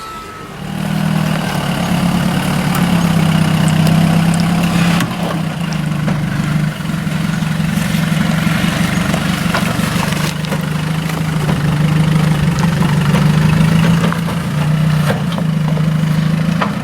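Four-wheel-drive vehicle's engine running at a low, steady speed during a slow rock crawl, with faint scattered clicks over the hum.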